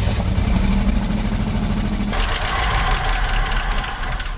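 1971 Ford F600 truck engine running on its own just after starting, its pitch dropping about two seconds in, with a light tapping from the valve train ("a little tappy").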